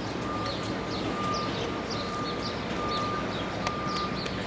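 City park ambience: a steady hum of traffic, with small birds chirping over it in short, high, repeated calls. A faint steady high tone comes and goes.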